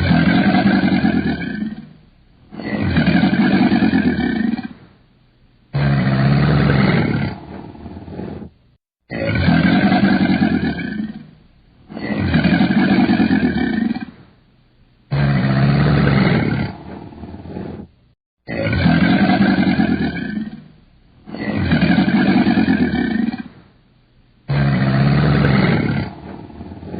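A large animal roaring in a series of long, deep calls of about two seconds each, with short pauses between them; the same run of calls repeats about every nine seconds.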